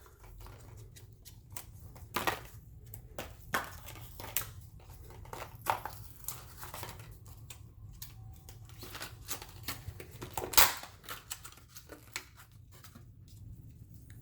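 Light scattered clicks and taps of small pistol parts being handled on a workbench as a replacement slide release is readied, with one sharper click about ten and a half seconds in, over a low steady hum.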